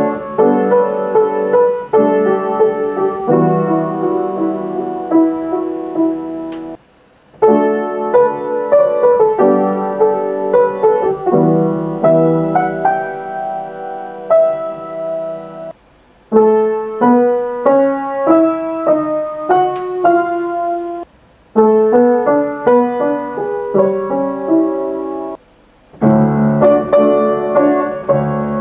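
A piano playing a tune with melody and chords. It stops abruptly for a moment four times, then carries on.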